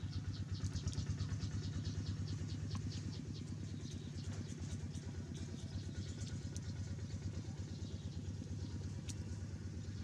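A small engine running steadily with an even, rapid throb.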